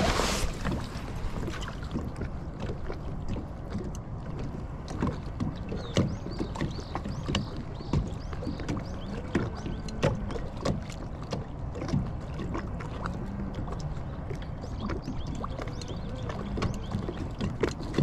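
Small waves lapping and slapping against the hull of a small fishing boat, with scattered light knocks and a faint steady hum in the middle.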